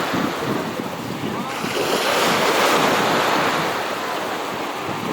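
Wind buffeting the microphone over a steady rush of sea water.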